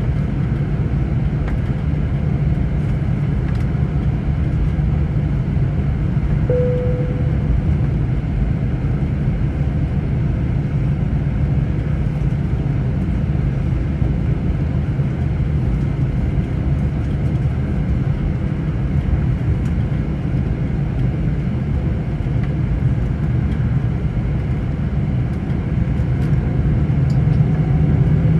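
Airliner cabin noise over the wing while taxiing: a steady low rumble from the jet engines, with a short tone about six seconds in. Near the end the sound grows louder with a rising whine as the engines begin to spool up for a rolling takeoff.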